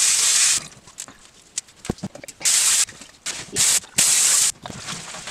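Kitchen tap water gushing into a sink in several short bursts as the faucet is turned on and off, with a few small knocks between; the water is rinsing bleach out of a tie-dyed cloth.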